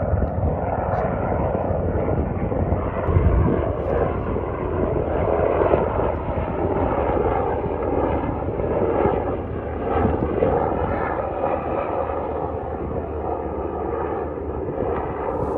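Helicopter flying past: a steady drone of rotor and turbine with a layered whine, easing a little near the end. A low rumble underneath, with one thump about three seconds in.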